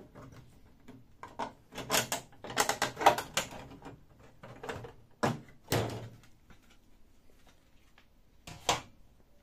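Plastic side cover of a Canon imageRUNNER 2018 copier being worked off its clips and pulled away: a run of clacks and knocks, loudest about two to three seconds in and again near six seconds, with one more knock near the end.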